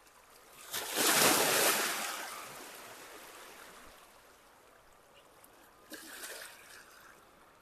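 Small sea waves washing in over rocks in shallow water: one loud rush of surf about a second in that fades away over a couple of seconds, and a smaller splash near the end.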